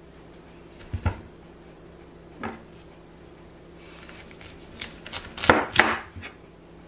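Chef's knife cutting through a head of broccoli on a wooden cutting board. There are a couple of single knocks of blade or broccoli on the board, then a quick run of cuts in the second half, ending in two loud strikes close together.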